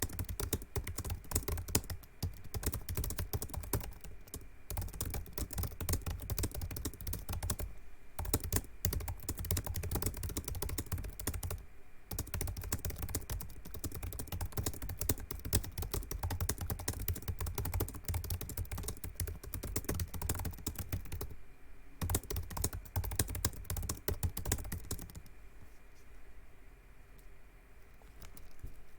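Fast, continuous typing on a Razer laptop's built-in mechanical keyboard, a dense rapid clatter of key clicks with a few short breaks, stopping about 25 seconds in.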